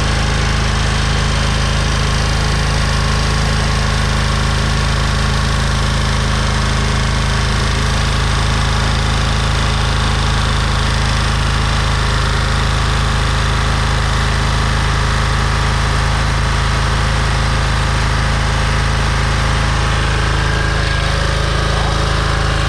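Lawn mower engine running steadily at high speed with the governor pulled, being run hard to make it throw a connecting rod.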